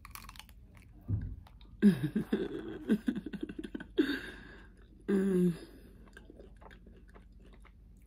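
Biting into and chewing a chocolate-coated It's-It ice cream sandwich (oatmeal cookies around mint ice cream), with a short crackle of the bite at the start. This is followed by chewing with a series of closed-mouth hums, the last one held briefly about five seconds in.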